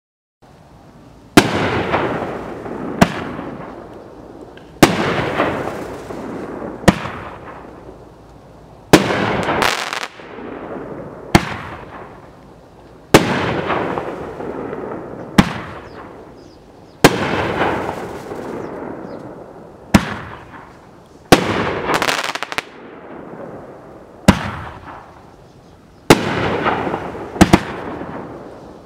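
A 9-shot consumer firework cake with 60 g canister-style shells, firing in sequence: a sharp bang about every two seconds, each followed by a fading crackle as the brocade and peony stars burn out.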